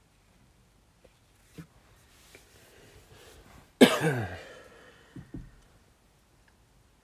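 A person coughing once, loud and sudden, about four seconds in, after a soft breath in; the cough's voice falls in pitch as it dies away, and two short fainter sounds follow about a second later.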